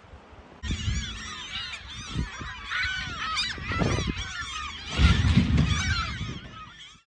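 A flock of birds calling, many overlapping short chirping calls at once, with low rumbling thumps under them that are loudest about five seconds in; it all cuts off suddenly near the end.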